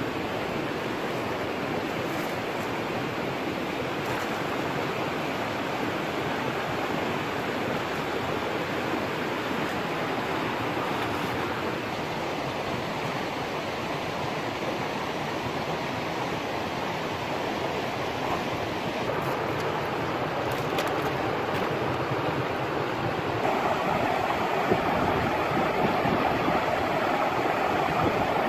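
Steady rushing of a rocky stream running over small rapids. It grows a little louder and fuller near the end.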